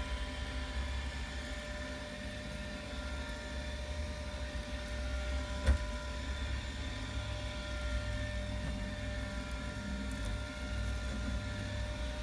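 A steady mechanical drone, like a small motor running, with a low rumble underneath and a single knock about six seconds in.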